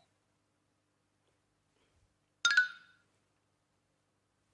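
A single bright chime, struck once about two and a half seconds in and ringing out for about half a second: a ding sound effect marking a blackberry set on the waffle.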